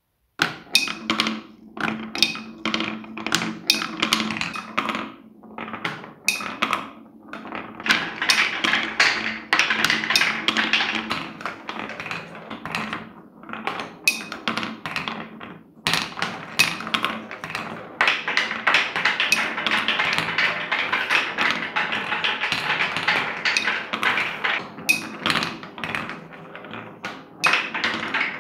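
Big marble balls rolling down a wooden marble run, rumbling along the wooden channels and clacking at the joints and turns, with balls circling in a bowl-shaped funnel. The clatter is dense and continuous, with a few short lulls as one run ends and the next ball sets off.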